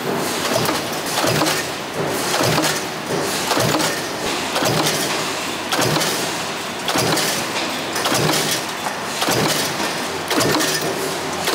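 Automated production-line machinery in an oil filter factory, running with a steady mechanical clatter and a repeating stroke about once a second.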